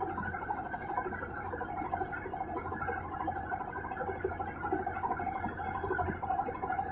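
Whirlpool Stainwash 6.2 kg top-loading washing machine running steadily in its spin-only program, near the end of the cycle.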